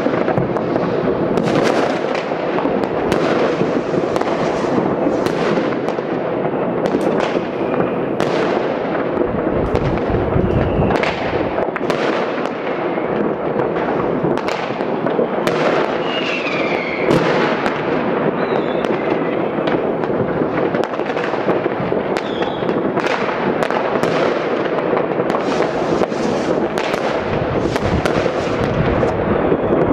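Many distant fireworks and firecrackers going off at once across a city: a steady crackling din with frequent sharp bangs on top of it, and now and then a short rocket whistle.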